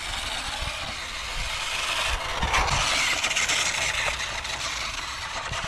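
WPL D12 RC kei truck driving over a rough concrete driveway and dirt: its small electric motor and gears whir and its tyres hiss and crunch on grit. It gets louder about halfway through as the truck comes closer.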